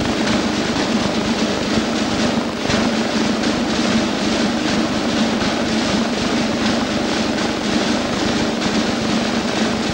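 Military drumming: snare drums beating a rapid roll over a steady low drone.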